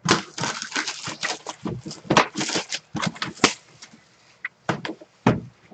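Hands handling a trading-card box and its packaging: a quick run of crinkling, rustling clicks for about three and a half seconds, then a few scattered taps.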